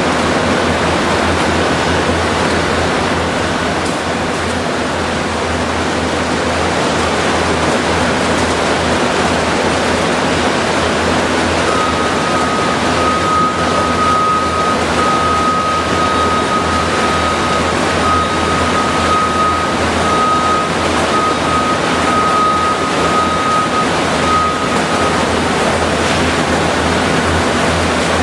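Loud, steady roar of machinery in a power-plant hall, with a low steady hum under it. A steady high tone with short breaks joins in from about twelve seconds to about twenty-five seconds in.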